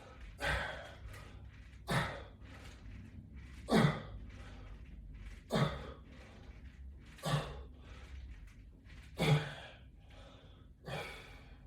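A man's hard, sharp exhales, about seven of them, roughly one every two seconds, each breath timed to a repetition of a body raise or push against a resistance band.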